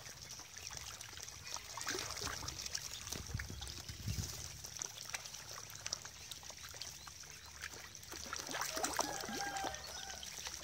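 Water splashing and trickling as a crowd of ducklings dabble and bathe in a shallow plastic tub, with a few short calls near the end.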